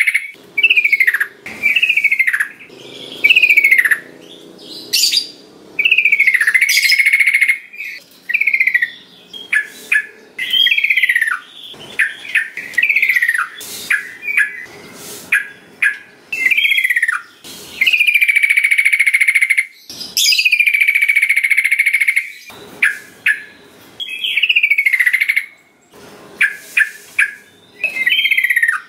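Yellow-vented bulbul (trucukan) singing loud, clear phrases, mostly short notes that fall in pitch, repeated about once a second with short gaps. A couple of longer, steadier phrases come in the middle.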